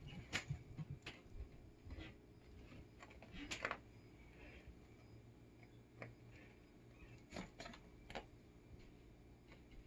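Faint, scattered light taps and rustles of a cat batting, grabbing and rolling with a small plastic wand toy with a pompom on carpet, the loudest tap about three and a half seconds in, over a low steady hum.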